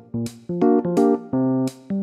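Background music: short keyboard chords struck in a quick, bouncy rhythm.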